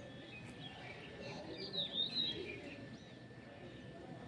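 Birds chirping, with a short cluster of quick gliding chirps about halfway through over faint outdoor background noise.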